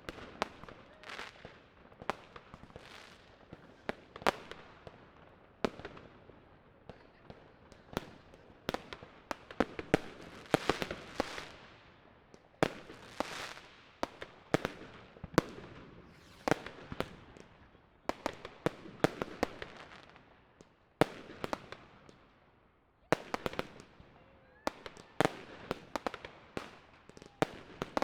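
Fireworks and firecrackers going off: dozens of sharp bangs at irregular intervals, some in quick runs of several, each trailing off in a fading rumble.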